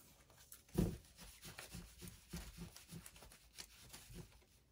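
Tarot cards being handled and laid out on a table, heard faintly: a dull thump about a second in, then a run of soft taps and light rustles.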